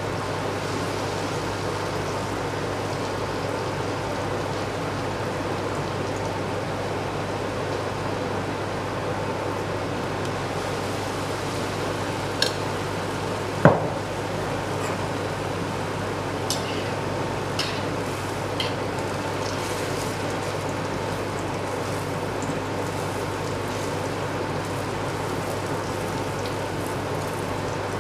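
Tempura-battered crayfish pieces deep-frying in hot rice bran oil in a steel wok: a steady sizzling and bubbling. A few sharp clicks come about twelve to nineteen seconds in, the loudest near fourteen seconds.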